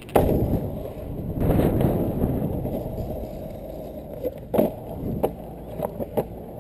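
Freebord rolling and carving over skatepark concrete: its wheels give a rough, steady rumble that swells about one and a half seconds in. A few sharp clicks come in the second half.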